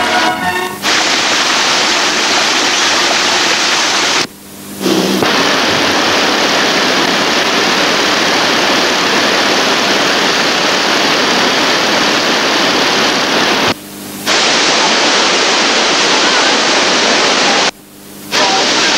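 Rushing water of a waterfall and a fast mountain stream: a steady, even hiss of falling and churning water that drops out briefly three times, about four, fourteen and eighteen seconds in.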